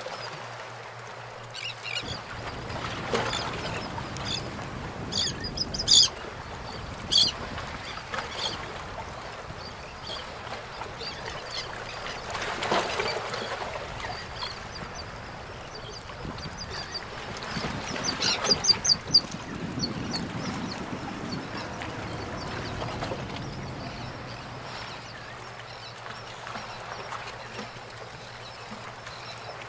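Gulls and terns calling, harsh runs of short, sharp calls that are loudest about six seconds in and again around eighteen seconds. Underneath is a steady background of water and a low hum.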